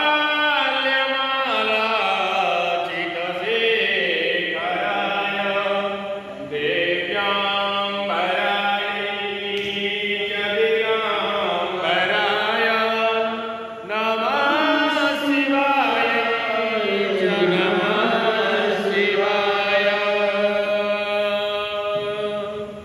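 A voice chanting a Hindu devotional mantra in long held notes that glide slowly up and down.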